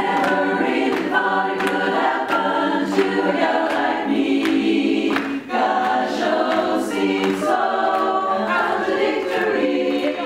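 A women's barbershop chorus singing a cappella in close harmony, moving through held chords, with a short break about halfway through.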